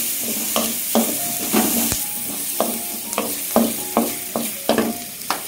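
Wooden spatula scraping and knocking against a metal kadai as vegetables are stir-fried, with a steady sizzle underneath. The strokes come irregularly, about two a second.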